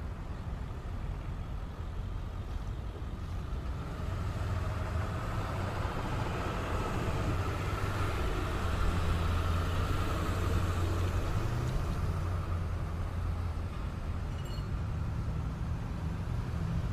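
Steady low mechanical hum and rumble with a noisy hiss over it, growing louder for a few seconds in the middle and then easing back.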